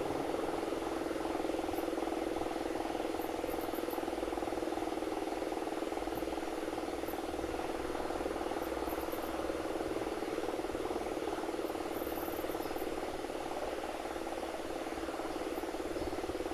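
Old Siemens & Halske electro-mechanical air-raid siren sounding a steady tone that holds one pitch without rising or falling.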